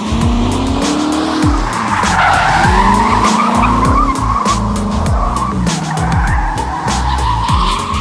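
Straight-piped C4 Corvette V8, mufflers deleted, revving up and down repeatedly while its rear tires spin and squeal on the asphalt through a smoky burnout donut.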